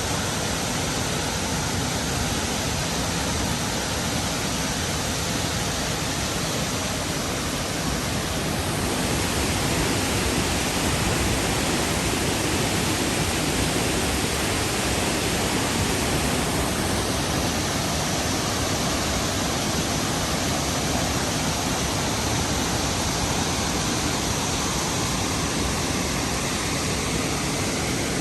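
Steady rushing of a large waterfall, Burney Falls, a dense unbroken noise that grows a little louder and fuller for several seconds in the middle.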